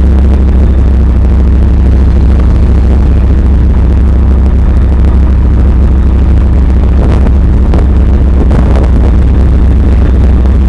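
Heavy armoured vehicle engine rumbling loudly and steadily up close, heard from aboard the vehicle, with a few rattles near the end.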